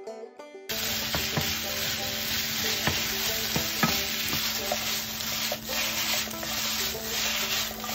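A moment of plucked background music, then chicken and vegetables sizzling steadily in a frying pan while being stirred with a wooden spatula, with a few light knocks of the spatula against the pan.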